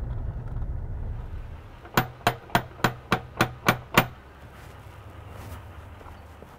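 Eight quick, evenly spaced knocks on a door, about three and a half a second, lasting about two seconds. Before them, a low rumble fades away.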